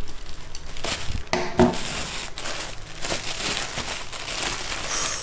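Brown kraft paper wrapping being unfolded and crumpled by hand, a continuous crinkling rustle, with a couple of light knocks about a second and a half in.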